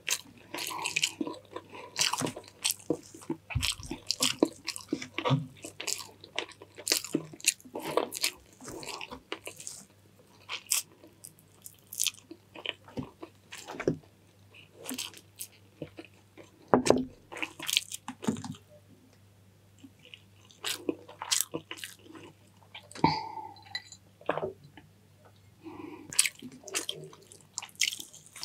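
Close-miked person eating, chewing and crunching food with many irregular sharp smacks and crunches.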